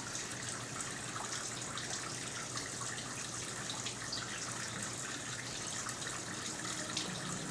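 Steady rush of running or spraying water with small splashing ticks, over a steady low hum.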